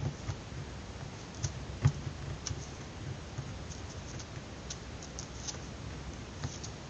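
Fingers handling a small object close to the microphone: scattered small clicks and ticks over a low rubbing rumble, the sharpest click about two seconds in.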